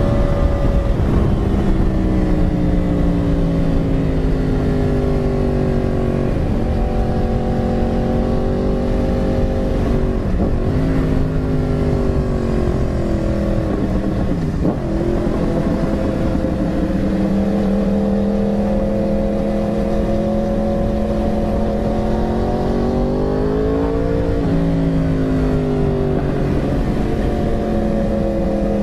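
Yamaha R1's inline-four engine running at road speed, its note falling and rising as the throttle is eased and opened, with a few brief dips in pitch, under a steady rush of wind.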